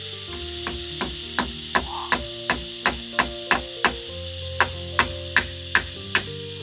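Hammer driving a nail into a wooden roof beam in quick, regular blows, about three a second, with a short break near the middle. A steady hum runs underneath.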